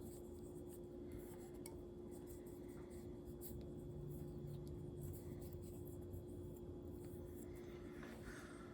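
Quiet room tone with a steady low hum and a few faint ticks and light rubbing, like small handling noises.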